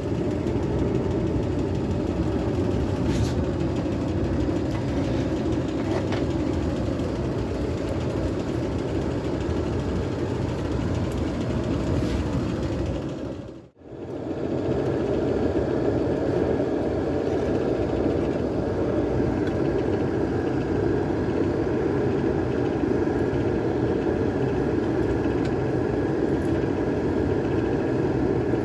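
Small homemade forge running with a steady, loud roar of forced-draught fire as a knife blade is heated for hardening. The roar cuts out briefly about halfway through, then resumes.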